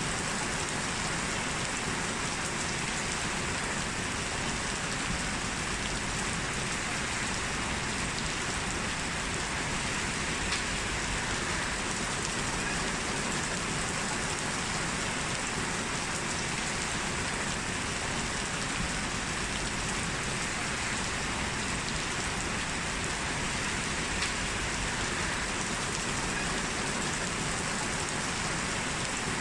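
Heavy rain falling steadily, an even hiss of rain on hard surfaces.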